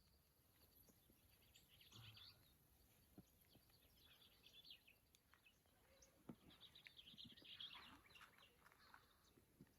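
Near silence, with faint scattered bird chirps in small bursts about two seconds in, around four seconds, and again near the end.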